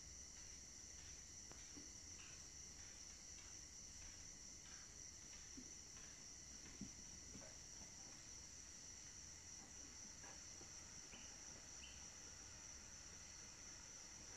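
Near silence: a steady high-pitched tone, with scattered faint short peeps from ten-day-old Brahman chicks.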